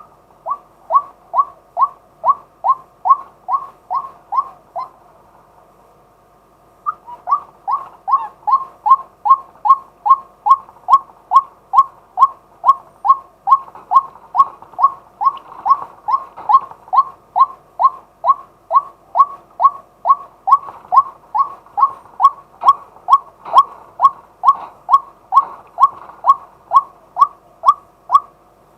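Male white-breasted waterhen calling, a long series of short, loud 'kwak' notes about three a second. The series breaks off about five seconds in, resumes after two seconds, and carries on steadily.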